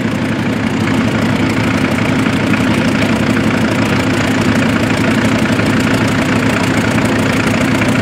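International Harvester tractor engine running steadily as it pulls a plough through stubble.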